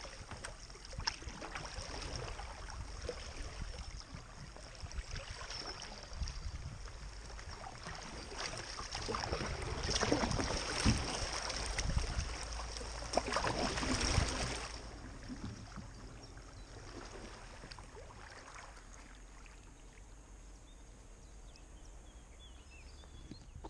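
Small-river water running past a kayak's hull, swelling into rushing and splashing for several seconds in the middle as the boat runs a shallow riffle, then settling back to a quiet flow.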